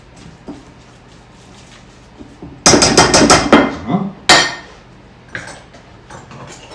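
Metal ice cream scoop knocking against a stainless steel mixing bowl: a quick run of sharp clinks about three seconds in, then a single louder ringing clank a moment later.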